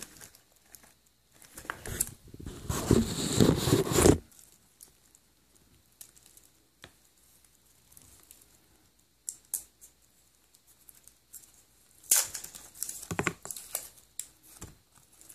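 Paper and plastic packaging around a watch bracelet crinkling and tearing as it is pulled out by hand: a loud burst of rustling about two seconds in, a near-quiet stretch with a few faint clicks, then more rustling near the end.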